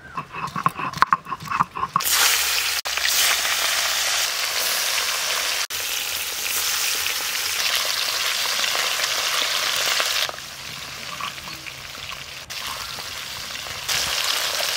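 Climbing perch (koi fish) frying in mustard oil in an aluminium wok: a steady, dense sizzle, softer for a few seconds near the end. A few short knocks and clicks come before it, in the first two seconds.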